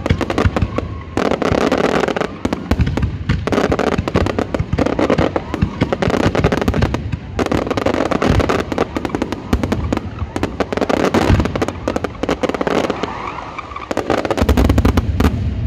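Aerial fireworks shells bursting in a dense, unbroken barrage of bangs and crackling stars. A heavier run of deep booms comes near the end.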